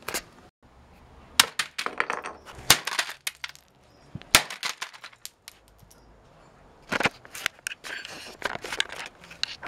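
Plastic computer keyboards being smashed on concrete paving: sharp cracks and clatter of breaking plastic in three bursts of rapid hits.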